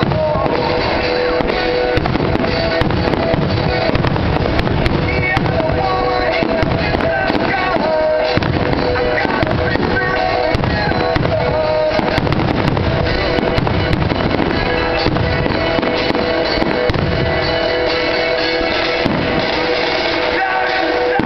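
Music playing over aerial fireworks shells bursting, with low booms and crackle throughout.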